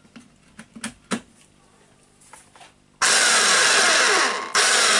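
Hitachi H45MR demolition hammer, after a few light handling clicks, is switched on about three seconds in and runs loudly. It cuts out for a moment, then runs again. From its sound the repairer judges the hammering parts to be worn out.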